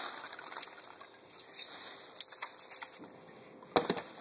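Hands digging through polystyrene packing peanuts in a cardboard box: irregular rustling and crackling with scattered light clicks, and a brief louder knock near the end.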